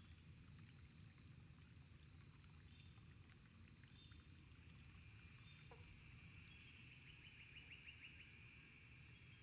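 Near silence: faint outdoor ambience with a steady low rumble and faint high chirps and ticks, with a short falling note just before six seconds and a rapid trill about seven seconds in.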